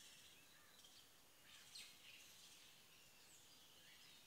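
Very faint outdoor ambience of distant birds chirping, a few short scattered chirps, one a little clearer near the middle.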